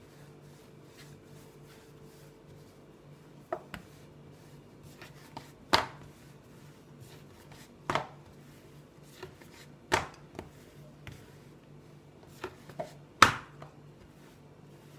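Thin wooden rolling pin (oklava) working dough on a wooden board: a quiet rolling scrape with sharp wooden knocks every second or two as the pin strikes the board. The loudest knock comes near the end.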